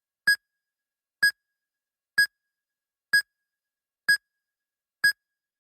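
Medical patient monitor beeping in time with a heartbeat: short, single-pitched beeps, six of them, at a steady pace of about one a second.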